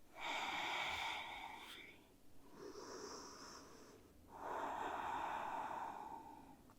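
Slow, deep breathing close to the microphone: three long breaths of about two seconds each, the middle one softer.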